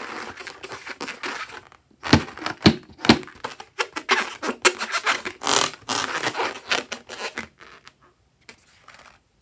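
Hands gripping and rubbing a filled rubber balloon: irregular rubbery scratching and scraping, with three sharp knocks about two to three seconds in.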